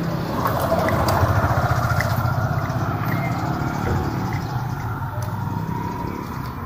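A motor vehicle's engine running close by with a rough, fast-pulsing low rumble, slowly fading as it moves off.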